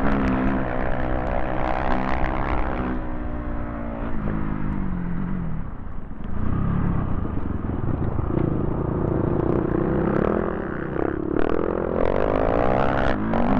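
Dirt bike engine running under load on an ice track. The engine note falls as the bike slows about three seconds in and is lowest around six seconds. It then climbs in repeated rising revs as the bike accelerates again near the end.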